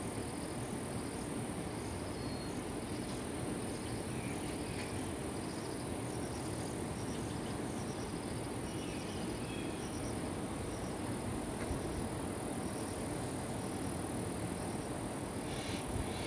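Insects droning steadily at a high pitch over a steady low rumble, with short faint chirps and ticks scattered through.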